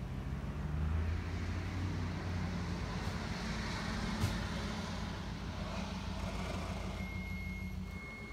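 Truck engine running steadily, picking up about a second in. A rushing noise runs through the middle, there is one sharp click about four seconds in, and a thin steady high tone comes near the end.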